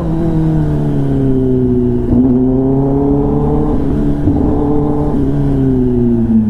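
Kawasaki ZX-10R's inline-four engine through an SC-Project exhaust, riding under throttle: its pitch climbs, dips sharply about two seconds in, climbs again, then falls off near the end as the rider eases off.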